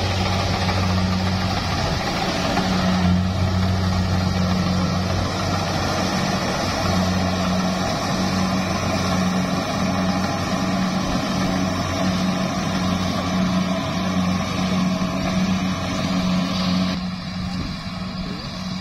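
Rice combine harvester's engine running steadily under load, with the cutting header and threshing machinery working as it cuts through rice. The sound drops noticeably quieter near the end.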